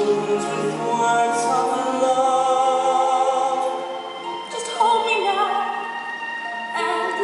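A man singing a slow musical-theatre ballad with vibrato over soft orchestral accompaniment, recorded live.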